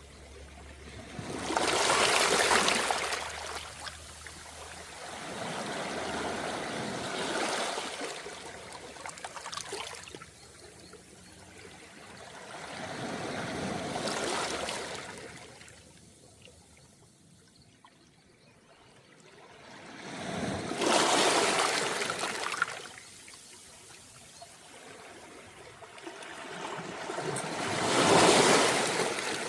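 Small, calm sea waves washing up and draining back over a round-pebble beach. Five surges come several seconds apart, each one swelling and fading away; the ones near the start and toward the end are the loudest.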